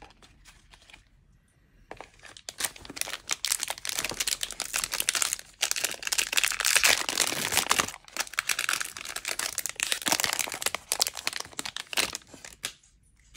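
Plastic wrapper of a Topps 2019 Update Series baseball card pack crinkling and tearing as it is opened by hand. The crinkling starts about two seconds in, runs on with many small crackles, and dies away just before the end.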